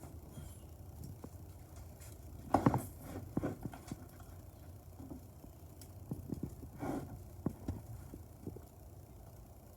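Intermittent light knocks, clicks and rustles from hands working the honeycomb shade's rod, track and cords, the loudest knock about a third of the way in and another a little past two-thirds.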